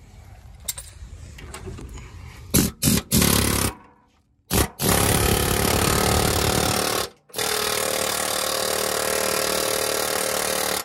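Pneumatic air hammer rattling in long bursts against a worn-out pressed-in ball joint to drive it out, after a few sharp metal knocks; the bursts stop abruptly.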